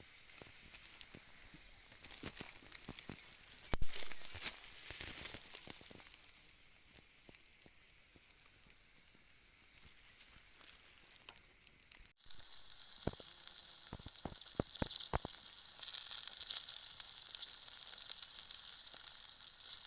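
Campfire crackling and hissing, with scattered sharp pops and one loud pop about four seconds in. About twelve seconds in the sound cuts abruptly to another stretch of the fire, with a steadier high hiss under the crackle.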